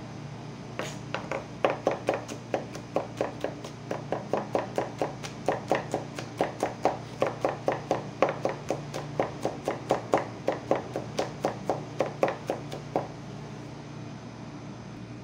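Chef's knife chopping garlic cloves on a wooden cutting board: a steady run of quick knocks, about four or five a second, that stops near the end.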